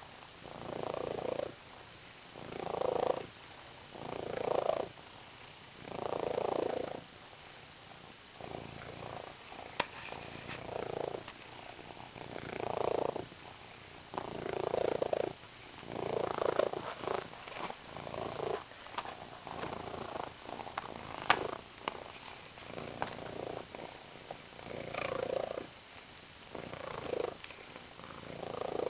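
Domestic cat purring steadily, the purr swelling and fading with each breath about every two seconds, with a few sharp clicks.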